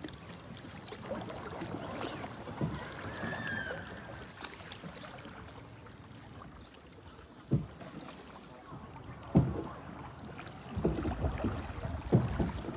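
A long wooden boat being paddled through shallow floodwater, with water swishing and lapping along the hull. There are several short low thumps in the second half.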